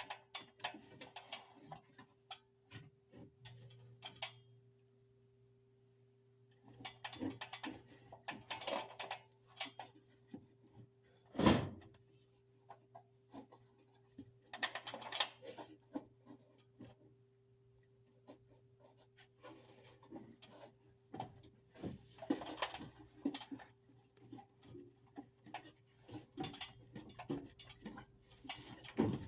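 Intermittent clicks, rattles and clatter from handling furnace parts and tools, with one sharp knock about 11 seconds in, over a steady low hum.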